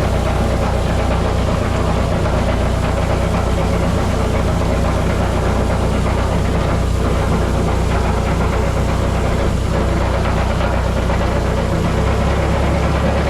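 Tractor engine running steadily with a Fırtına air-blast pesticide sprayer, an even engine hum under a constant rush of noise with no change in speed.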